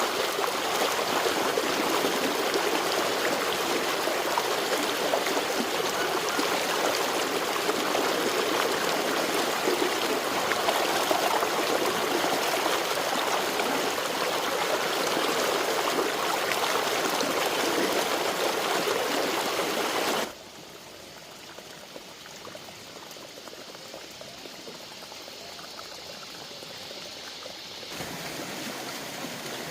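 Steady rush of flowing water, like a fast stream. About two-thirds of the way through it cuts abruptly to a much quieter, thinner flow, which grows a little louder near the end.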